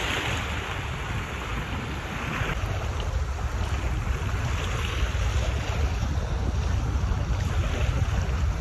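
Small waves washing over the sandy shallows at the shore, strongest in the first couple of seconds, with wind buffeting the microphone as a low rumble.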